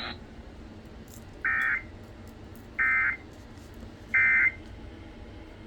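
Three short bursts of Emergency Alert System (SAME) digital data tones, each about a third of a second long and a little over a second apart: the end-of-message signal that closes an alert.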